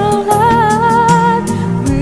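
Background music: a held, wavering melody over a steady beat.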